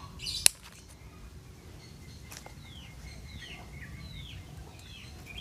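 A single sharp snip of pruning shears cutting through a bonsai branch about half a second in. Faint, short falling bird chirps follow every second or so.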